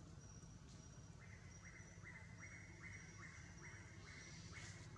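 Faint forest ambience: a call repeated about twice a second from about a second in, over a high, thin chirping that comes and goes and a low steady rumble.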